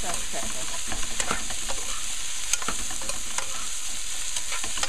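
Long beans, potato and shrimp sizzling in oil in a metal pot as they are stirred, with a steady hiss and the spoon clicking and scraping against the pot every so often.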